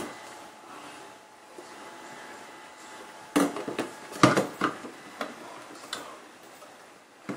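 Plastic parts of a Delta Qool Evolution capsule espresso machine knocking and clicking as they are fitted together during assembly. About three and a half seconds in comes a cluster of sharp knocks and clicks, with a few more single clicks up to about six seconds.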